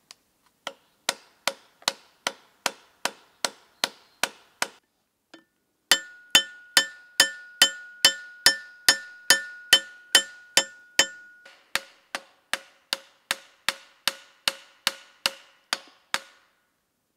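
Hammer blows on the metal of an old cleaver resting on a wooden stump, metal on metal and ringing, at about two and a half strikes a second. There is a short pause about five seconds in, then a longer steady run, with a clear ringing tone held under the first half of it.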